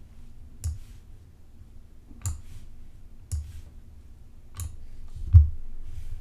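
Five separate computer mouse clicks, spaced about a second apart, the loudest near the end, over a faint steady hum.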